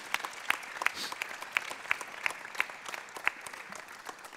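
Audience applauding, with a few nearby hands clapping sharply about three times a second over the general clapping. It dies down near the end.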